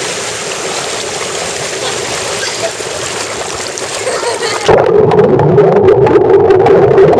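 Whirlpool spa jets churning the water with a steady hiss of bubbles and splashing. About four and a half seconds in, the sound turns suddenly muffled and louder as the microphone goes under the water, becoming a low, steady bubbling.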